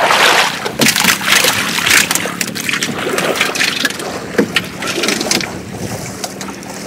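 Shallow, muddy floodwater splashing and sloshing irregularly as fishermen work through it hunting snakehead; the splashes thin out and get quieter over the last couple of seconds.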